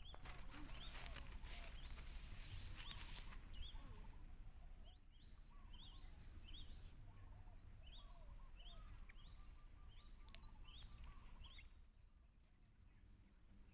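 Small birds chirping faintly, with short rising calls repeated at different pitches, thinning out near the end. A few clicks and knocks come in the first few seconds.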